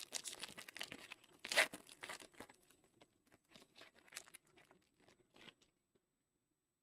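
A Panini Illusions football card pack being torn open: a sharp rip of the wrapper about a second and a half in, then lighter crinkling and rustling of the wrapper and cards that stops a little before the end.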